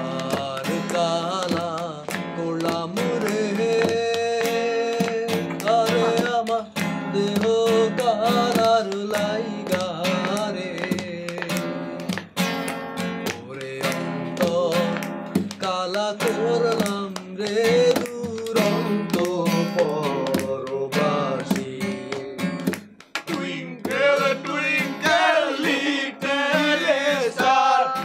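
A song played on acoustic guitar, with a singing voice carrying the melody over the plucked and strummed chords.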